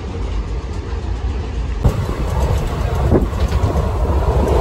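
Steady low rumble inside a moving non-AC Indian Railways passenger coach: train wheels running on the rails. The sound shifts abruptly about two seconds in.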